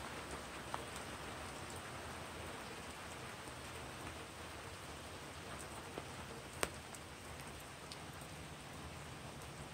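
Steady rain falling at night, a soft even hiss, with a few isolated sharp taps of drops, one louder about six and a half seconds in.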